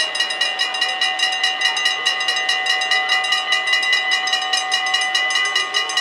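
Level-crossing warning bells ringing in rapid, evenly spaced strokes, several a second: the crossing's warning that a train is approaching, sounding while the barrier booms come down.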